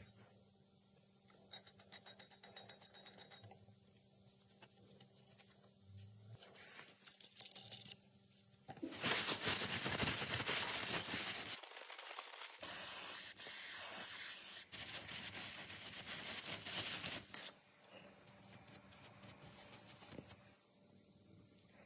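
Loud hissing noise starting about nine seconds in and lasting about eight seconds, with quiet clicks and handling sounds before and after.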